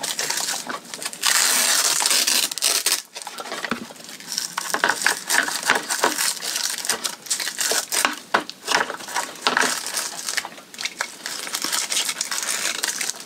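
Hard-case battery packs being pushed and slid into an RC car's plastic battery trays, with a strap handled: irregular plastic scraping, rustling and clicks, with a longer scraping rustle about a second in.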